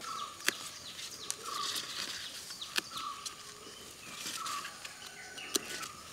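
Wild colocasia (taro) leaf stalks snapping as they are picked by hand, three sharp snaps, with birds chirping in the background.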